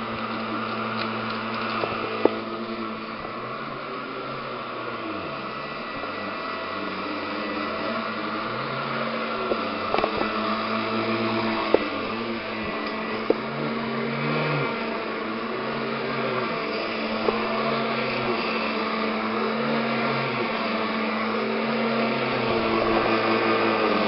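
Royal upright vacuum cleaner running steadily with a constant hum. Its low sound rises and falls every second or two as the nozzle is pushed back and forth over carpet, with a few light knocks.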